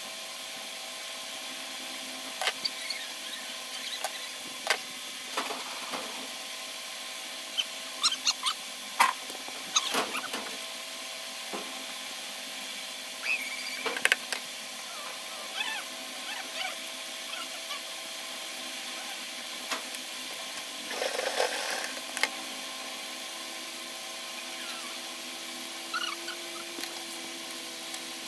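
Scattered snips, taps and cloth rustles of hand work with tailoring scissors and fabric on a wooden sewing-machine table, over a steady background hum.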